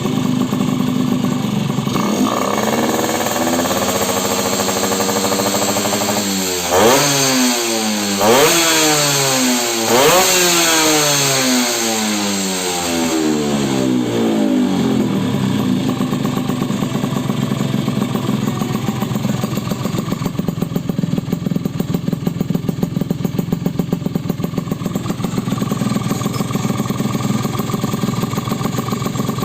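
Yamaha F1ZR two-stroke engine running through an aftermarket side-mounted under-body exhaust. It idles, picks up about two seconds in, is revved sharply three times between about seven and ten seconds, then drops back to a steady idle.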